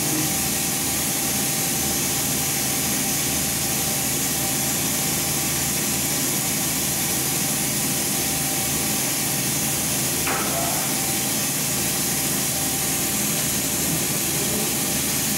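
Steady hiss of a media-blasting hose stripping paint from a 1965 Chevy C-10 cab's sheet metal down to bare metal, over a low steady hum. A brief knock about ten seconds in.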